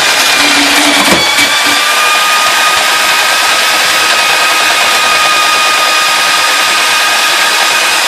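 Powered drain auger running steadily with a high motor whine as it works into a clogged sewer drain, with a brief knock about a second in.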